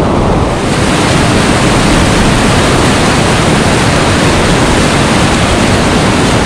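Whitewater rapids churning over boulders close by: a loud, steady rushing noise that turns brighter and hissier about half a second in.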